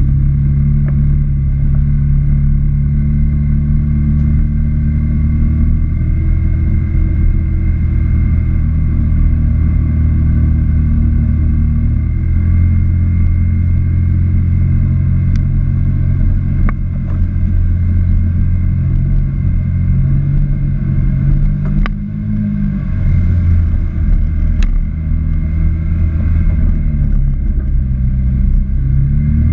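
Can-Am Maverick X3 Turbo side-by-side's turbocharged three-cylinder engine running at easy trail pace, its note rising and falling as the throttle is eased on and off. A few sharp clicks sound over the engine.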